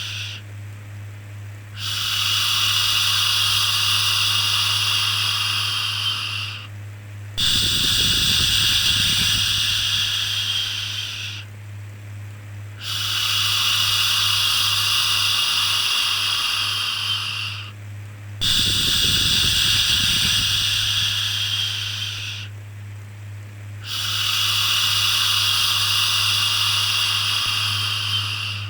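Repeated long 'shhh' shushing sounds for soothing a baby. There are five in a row, each lasting about five seconds, with short breaks of about a second between them, over a steady low hum.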